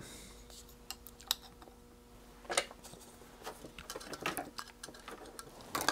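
Thin speaker wire leads having their insulation stripped with a small hand tool: a scattering of sharp clicks and snips, the loudest near the end.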